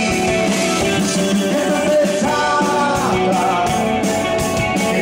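Live rock band playing: a male lead vocalist singing over electric guitar and electric bass, with a steady beat.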